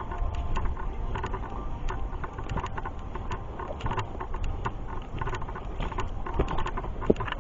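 Footsteps on a hiking trail: a quick, irregular run of crunches and clicks over a steady low rumble of wind on the microphone.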